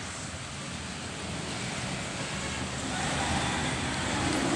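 Steady outdoor traffic noise, a rumble with an even hiss over it, growing louder near the end as if a vehicle is drawing closer.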